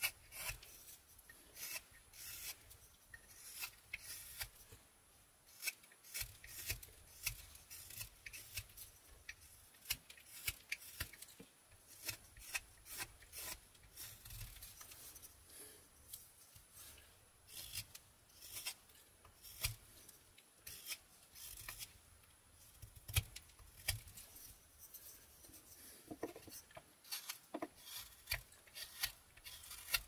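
Mora 122 carving knife slicing shavings off a basswood blank: many short cutting strokes at an uneven pace, with small gaps between runs of cuts.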